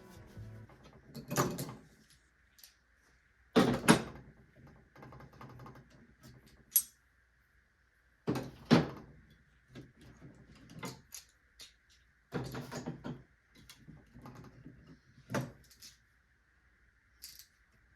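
Intermittent knocks, clicks and rattles of small objects being handled and set down on a work surface. They come in several separate clusters a few seconds apart, the loudest about four and nine seconds in, over a faint steady high hum.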